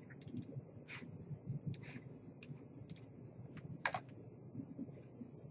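Faint computer mouse and keyboard clicks, about half a dozen spread out, the sharpest a little before four seconds in.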